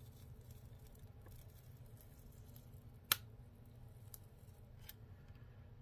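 Faint steady low hum with one sharp click about three seconds in and two fainter ticks after it, small knocks from hand soldering work on a glass piece.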